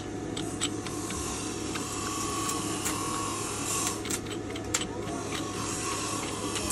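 A steel nut being run by hand along a freshly cut thread on a bar held in a lathe chuck, giving scattered light metallic clicks, over a steady machine hum.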